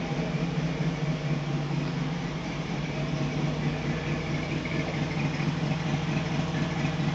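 LSX V8 in a 1974 Chevrolet C10 idling steadily with a misfire: it is running on only four cylinders, caused by a loose ground wire for the ignition coils.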